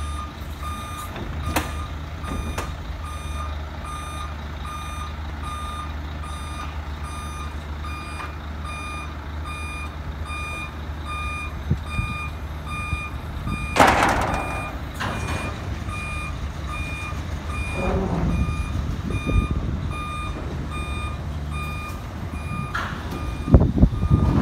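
Truck warning beeper sounding steadily at about two beeps a second over the low rumble of the idling truck, while the rear loading ramp of a double-deck livestock trailer is lowered. A loud hiss comes midway, and a few clanks near the end.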